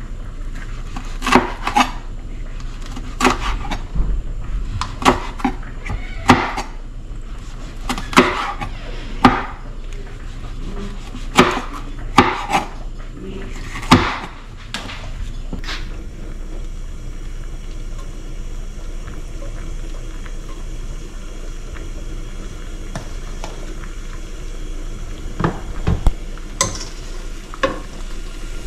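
Chef's knife chopping a bell pepper on a plastic cutting board: irregular sharp knocks of the blade on the board through the first half, then a steady low background hum, with a few more knocks near the end.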